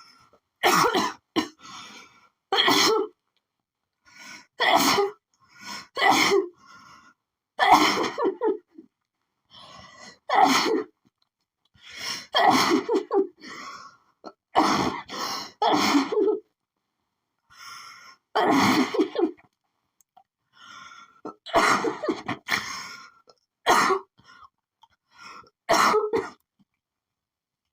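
A woman's sneezing fit from a pollen allergy: more than a dozen loud sneezes, one every one to two seconds, with quieter catching breaths between them.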